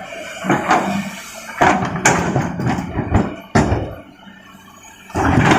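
Large rocks dropped into a dump truck's steel bed by an excavator: a run of irregular heavy knocks and clattering, with a quieter stretch near the end before more knocks.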